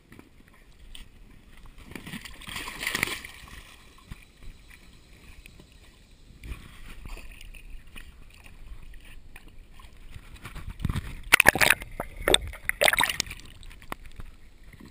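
Pool water splashing and sloshing around an inflatable float as a dog goes into the water and swims, with the loudest splashes in a cluster near the end.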